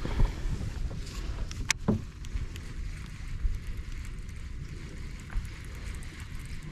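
Wind rumbling on the microphone aboard a kayak on open water, with a sharp click and a few light knocks in the first two seconds and another light knock later.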